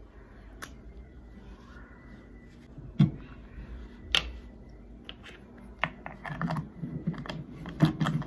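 Plastic toner bottle and its cap handled close to the microphone: a knocking click about three seconds in, a sharp click a second later, then a quick run of clicks and low taps near the end.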